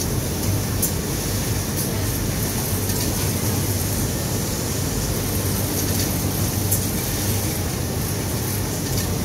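Steady drone of garment-factory machinery: an even rushing noise with a constant low hum underneath, and a few faint ticks.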